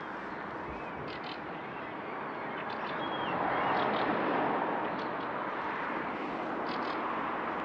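Outdoor city street ambience: a steady rush of noise that swells about three seconds in and stays a little louder, with a few faint high chirps over it.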